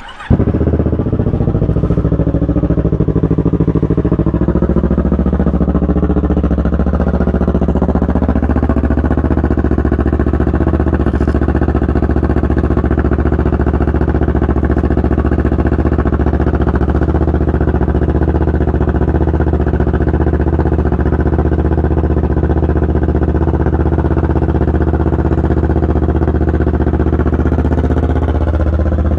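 2019 Kawasaki Ninja 650's parallel-twin engine, breathing through a full Black Widow exhaust with its baffle removed, catches on a cold start right at the beginning. It idles a little unevenly for the first few seconds, then settles into a steady idle.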